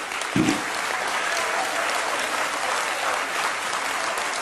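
Members of parliament applauding steadily in the chamber, with one short, deep sound about half a second in.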